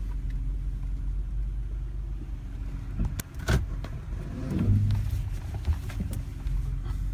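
Toyota Sienna minivan running slowly in reverse, with a noise from the brakes heard twice: a short sharp sound about three and a half seconds in, then a falling groan about a second later.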